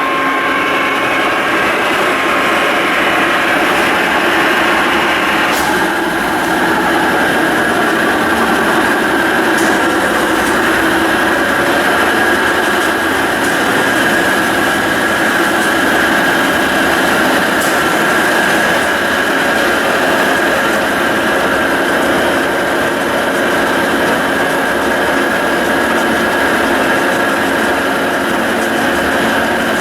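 Carlton radial arm drill press running under power: a steady mechanical whine and gear hum from its motor and spindle drive. The sound shifts slightly about five seconds in.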